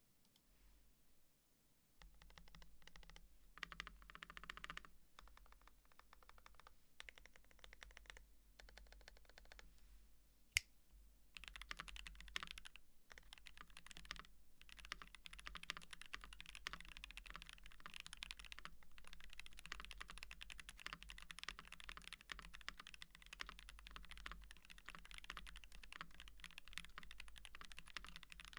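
Typing on an Ikki68 Aurora R1 mechanical keyboard with Gateron Box Ink V2 linear switches, lubed with Krytox 205g0 and filmed, under GMK Kaiju keycaps. Keystrokes begin about two seconds in. There is one sharper click about ten seconds in, and the typing becomes faster and continuous over the second half.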